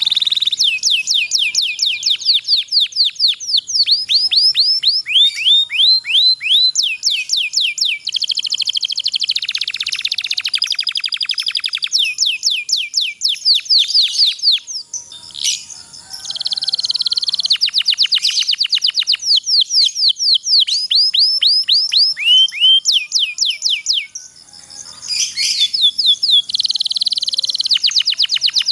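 Domestic canary singing long rolling trills: rapid runs of quickly repeated sweeping notes, one phrase straight after another. There are two brief pauses, about halfway through and again a few seconds later.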